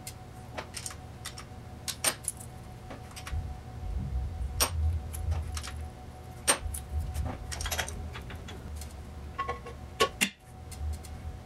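Irregular sharp metallic clicks and clinks of hand tools working on the rocker gear of a Triumph Spitfire's four-cylinder overhead-valve engine while the valve clearances are set.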